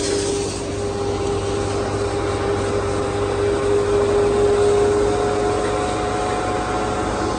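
Sewer vacuum truck running steadily, its engine and vacuum pump making an even drone with a held whine.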